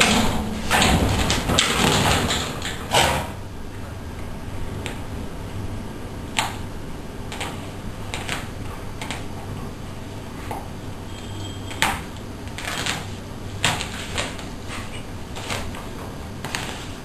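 Dense scuffling and knocking for about the first three seconds, then scattered sharp clicks and taps every second or so over a low steady hum.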